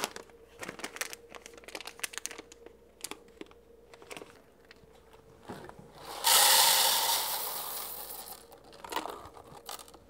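Resealable coffee bag crinkling and rustling as it is handled, with scattered light crackles. About six seconds in comes a sudden, louder rush of rustling that fades over a couple of seconds as the bag is pushed up over the grinder's chute.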